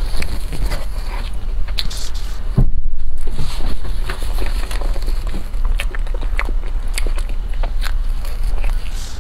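Close-miked eating sounds: a soft layered crepe cake being chewed, with many small wet mouth clicks and a few spoon scrapes. A brief muffled thump about three seconds in.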